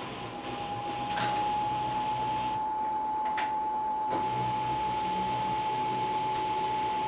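Samsung Eco Bubble washing machine running a wash cycle: a steady motor whine that rises slightly in pitch during the first second, then holds level, with a couple of faint clicks.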